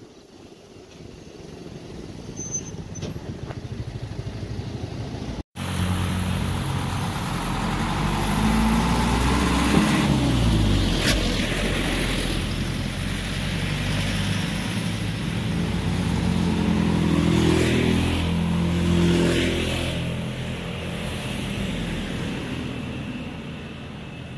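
A low rumble grows louder over the first five seconds and cuts off abruptly. Then motorcycles and cars drive past one after another on the road, the engine pitch dropping as each goes by.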